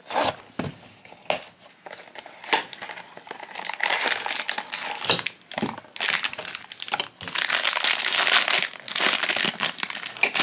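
Foil wrapper of a blind-box figure crinkling as it is handled and torn open by hand, loudest near the end. The first few seconds hold only light scattered taps and rustles.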